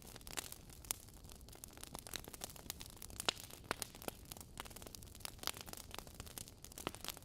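Wood fire crackling: burning logs give irregular sharp pops and snaps, several a second, over a soft steady hiss.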